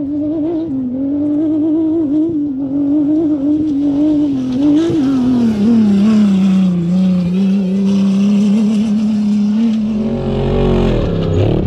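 Off-road race buggy's engine at high revs, passing at speed: the engine note wavers high as it approaches, drops as the buggy goes by and holds lower as it pulls away. Near the end a deeper rumble with swooping pitch comes in.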